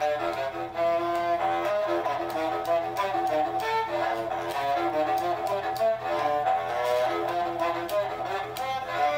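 Bowed horn fiddle, a Stroh-type fiddle with a brass horn bell, played in a quick, restless run of short notes that change every fraction of a second.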